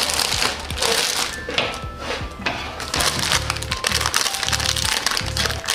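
Crinkling and crackling of plastic-wrapped cracker packs being handled on a countertop, with light clicks and taps, over background music.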